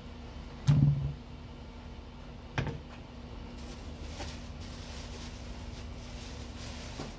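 Two knocks about two seconds apart, the first louder and duller, followed by a steady hiss.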